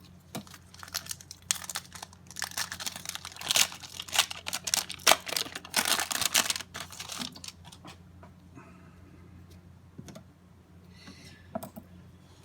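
Trading-card pack wrapper crinkling and tearing open for several seconds, followed by a few lighter clicks and rustles as the cards are handled.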